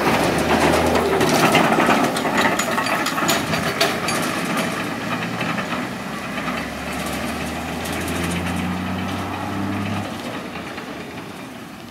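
Isuzu FXZ 360 dump truck towing a loaded trailer pulls away on a gravel road, its diesel engine running steadily under load with tyres crackling over the gravel. The sound fades as the rig moves off, and the engine note drops away about ten seconds in.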